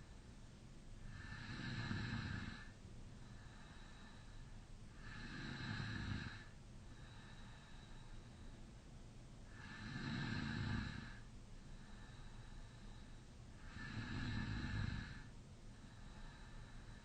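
A man snoring in deep sleep with his mouth slightly open. Four long, rasping snores come about every four seconds, with quieter breaths between them.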